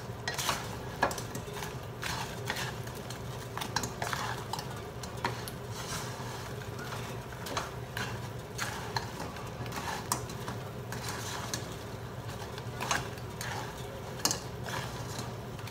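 Wooden spatula scraping and knocking against a nonstick wok as fried chicken wings are tossed in a sticky sauce, in irregular clacks with the sauce sizzling underneath.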